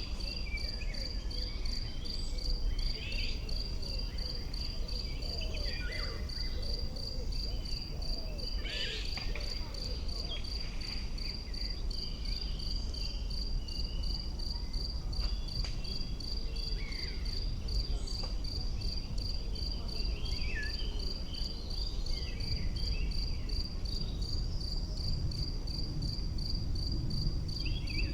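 An insect chirping steadily in an even, unbroken pulse at one high pitch. Scattered short bird chirps and a low rumble sit underneath it.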